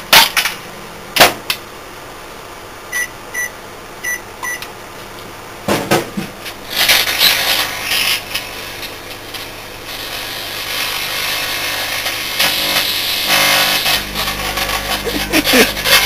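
Microwave oven keypad beeping four times, a knock about six seconds in, then the oven running with crackling and hissing as the light globes and glass inside arc and burn; a low hum joins near the end.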